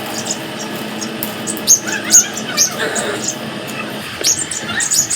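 Pet parrots giving short, high-pitched squeaks and chirps, a cluster of calls about two seconds in and another near the end.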